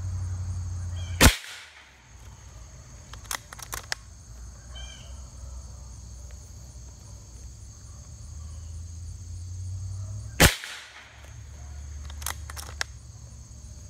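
Two shots from a Winchester Big Bore Model 70 .357 PCP air rifle, about nine seconds apart. Each is followed about two seconds later by a few quick clicks as the action is worked for the next pellet. These are shots 13 and 14 of a string on a single air fill.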